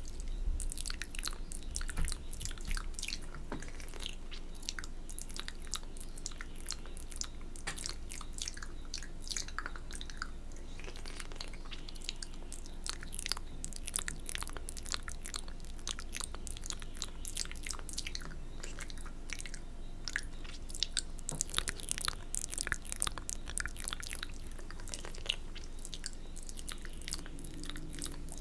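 Close-miked wet mouth sounds for ASMR spit painting: quick licking, smacking and spit clicks, many small wet clicks a second without pause, in a denser flurry a little past the middle.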